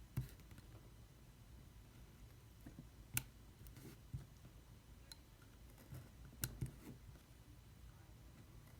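A handful of sharp clicks and small taps from hands handling paper parts and cutting tools on a desk, a few seconds apart, two in quick succession past the middle, over quiet room tone.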